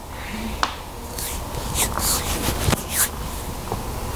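Quiet, indistinct speech with soft hissing sounds and a few small clicks.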